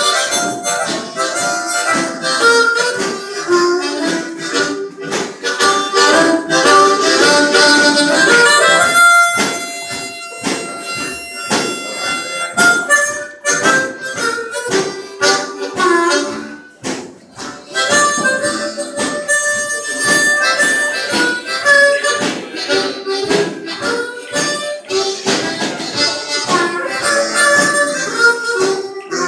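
A group of harmonicas playing a tune together in rhythmic chords, with a long held high note about nine seconds in and a brief lull just before the middle of the piece picks up again.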